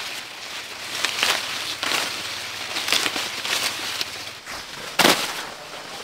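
Dry corn leaves and husks rustling and crackling as ears of corn are pulled off the stalks by hand, with one sharp snap about five seconds in.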